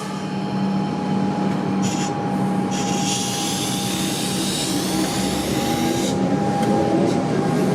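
Comeng electric suburban train moving past along a station platform: a steady motor hum over wheel and rail noise, with a higher whine that rises in pitch from about three seconds in as the train picks up speed.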